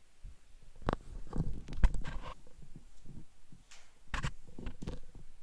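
Scattered knocks, clicks and low thumps of movement and handling, picked up close on a worn headset microphone. The loudest thump comes about two seconds in, and a cluster of sharp clicks about four seconds in.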